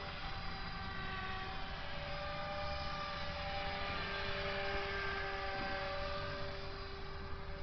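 Align T-Rex 450 electric radio-controlled helicopter in flight: its motor and main rotor give a steady whine, the pitch drifting slightly up and down as it manoeuvres.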